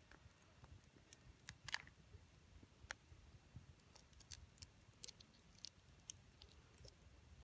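Faint scattered clicks of blood cockle shells being pried apart by hand, the ribbed shells cracking open one by one.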